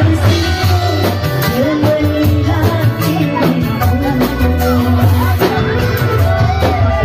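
A woman sings into a microphone over loud amplified Indramayu reog music, with a steady drum beat and a moving bass line.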